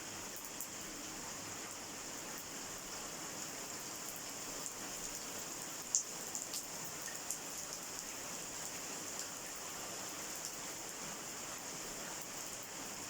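Steady rain falling, an even hiss with a few sharp ticks of drops striking close by, the loudest about six seconds in.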